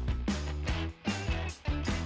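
Background music with a steady beat, about two hits a second over a bass line.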